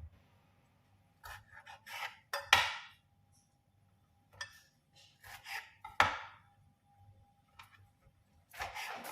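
Kitchen dishes and utensils being handled: scattered light clicks and knocks with quiet gaps between, the sharpest about two and a half seconds and six seconds in.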